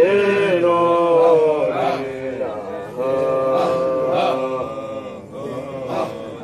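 Sufi dhikr chanting in the style of a Qadiriya digri: sung lines held on long notes, with a few short breaks between phrases.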